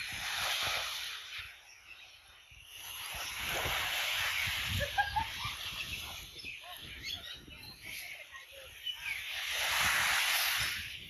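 Small waves washing up on a sandy shore, the hiss of each wash swelling and falling away: one about a second in, a longer one from about three to five seconds, and one near the end. A few faint bird chirps in between.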